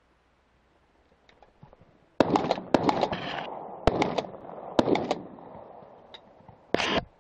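Shotgun fired at pigeons: a sudden loud bang about two seconds in, then more sharp cracks amid rustling over the next few seconds, and a short noisy burst near the end.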